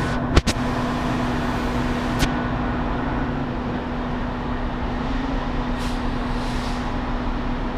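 Steady city street traffic noise with a constant low hum, and one sharp click about half a second in.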